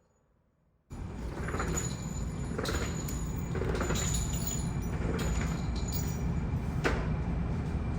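Silence for about a second, then a steady low rumble with scattered light clicks and knocks, typical of handling noise in a shooting range's background.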